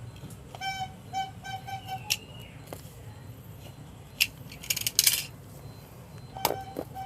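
A passing siomay street vendor's call signal: short, high-pitched tones repeated about three times a second, a run of four about half a second in and another near the end. In between, sharp clicks and rustling from the phone box being handled and opened.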